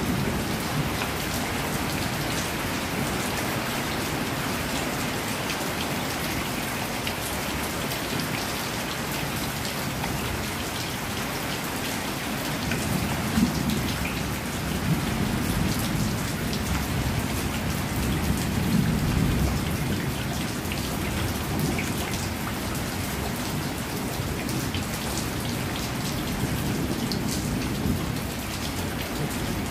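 Heavy rain falling steadily on corrugated sheet roofs and a courtyard, with water pouring off the eaves. There are low rumbles now and then through the middle.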